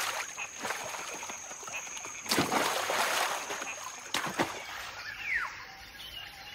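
Water splashing as macaques leap across a river, with sharp knocks and a louder, longer splash about two seconds in. It then gives way to quieter forest ambience with a short falling call.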